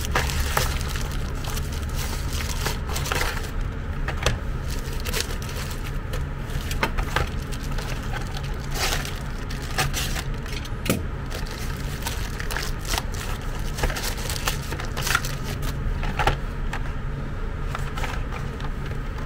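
Plastic mailer bag crinkling and crackling as it is torn open by hand and slit with a utility knife, with irregular scrapes and rustles throughout. A steady low hum runs underneath.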